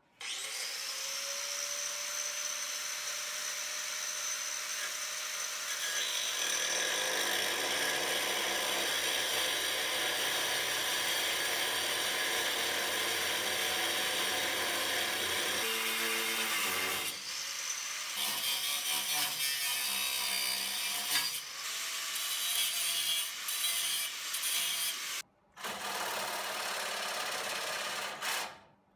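Angle grinder with a cutoff wheel cutting into a steel suspension mount, its whine steady at first and heavier under load from about six seconds in. It stops briefly and then comes in uneven bursts. Near the end, after an abrupt break, a cordless reciprocating saw cuts the steel for a few seconds.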